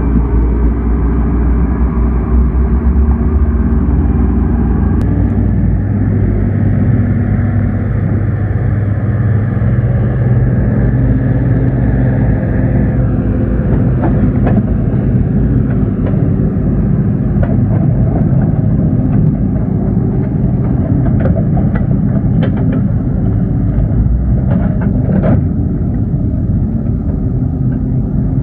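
Excavator's diesel engine running steadily; its note steps up slightly about five seconds in. Scattered sharp clicks and knocks come through in the second half.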